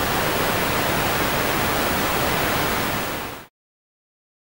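A loud, steady hiss of static-like noise, even across all pitches, cutting off about three and a half seconds in.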